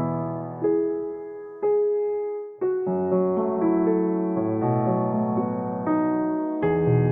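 Slow background piano music: sustained chords struck about once a second, with a brief dip just before a new chord about two and a half seconds in.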